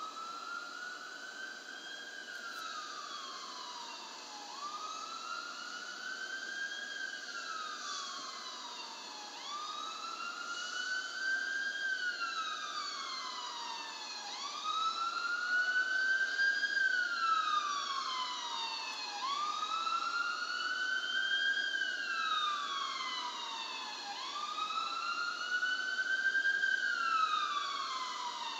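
Ambulance siren on a slow wail, its pitch rising and falling about once every five seconds. It gets louder about halfway through.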